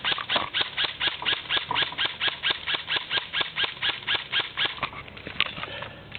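Airsoft gun firing a steady string of shots, about four to five a second, each with a sharp, squealing crack. The string stops about five seconds in, and one last single shot follows.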